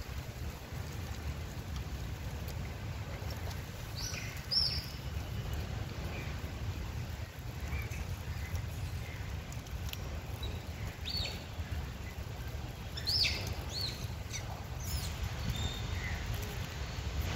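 Outdoor ambience: a steady low rumble with a few short, high chirps or squeaks scattered through, the clearest about four seconds in and again around thirteen seconds.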